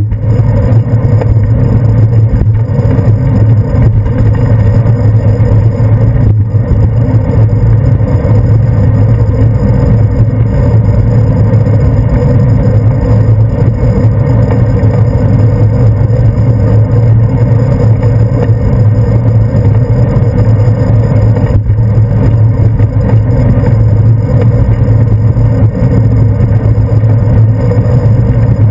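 Loud, steady low rumble of wind and road vibration on a handlebar-mounted GoPro Hero 2 while a bicycle rolls along a paved path.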